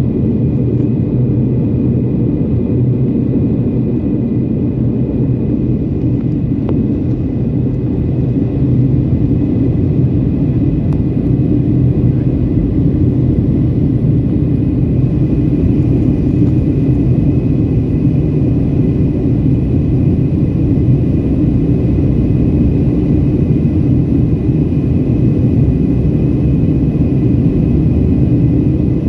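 Jet airliner cabin noise in the air after takeoff: a steady low rush of engine and airflow noise with a faint steady high whine, heard from a window seat inside the cabin.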